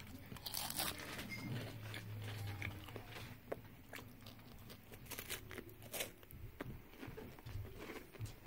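Faint chewing of a Little Debbie Nutty Buddy, a chocolate-coated peanut-butter wafer bar: soft crunches and small mouth clicks scattered throughout.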